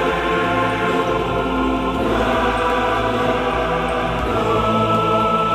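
Background music of choir-like voices holding long chords, with a new high held note coming in near the end.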